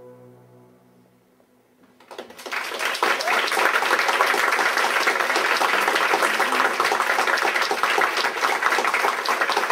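The last sustained tones of the dance music fade out into a moment of quiet, then about two seconds in an audience starts applauding, swelling quickly into steady, dense clapping.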